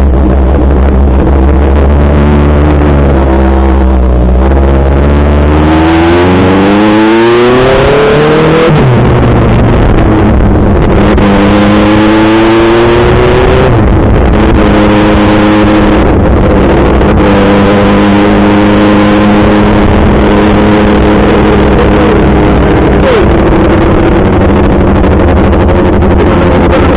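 Kawasaki ZX-6R 636 inline-four engine under hard acceleration: its pitch climbs for several seconds and drops sharply at a gear change, climbs and drops again at a second shift, then runs at a fairly steady high pitch.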